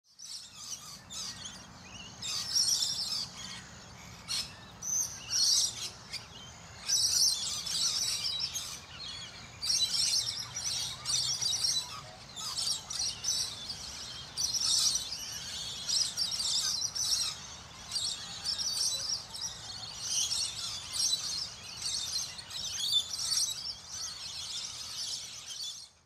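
A chorus of many birds chirping and singing, calls overlapping one after another, over a faint steady outdoor background.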